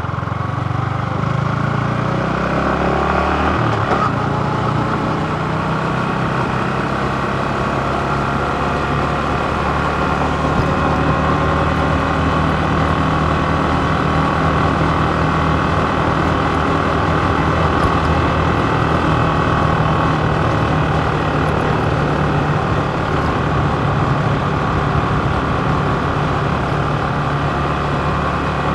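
Yamaha MT15's 155 cc single-cylinder engine running under way, its pitch climbing over the first four seconds as the bike accelerates, then holding steady at a cruise. Wind and road noise run underneath.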